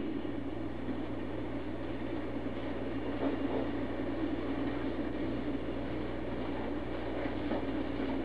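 HO scale model freight cars rolling past on the track with a steady rumble of wheels on the rails, and a few faint clicks as they pass over rail joints.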